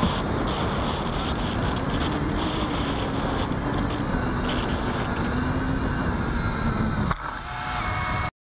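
Small RC airplane's electric motor and propeller whine, heard from its onboard camera under wind rush. About seven seconds in it drops sharply as the plane touches down on the sand, and the sound then cuts off.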